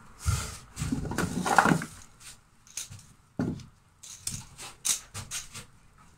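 Work handling noises: a loud rustling and scraping stretch in the first two seconds, then scattered light clicks and knocks as tools and parts are picked up and set down.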